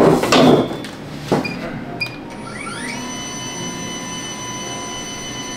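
A scrape as a chair is pulled up, a click and two short beeps, then a DJI Avata's motors spin up with a rising whine and settle about three seconds in into a steady whine of several tones, idling on the table with its stock five-blade propellers.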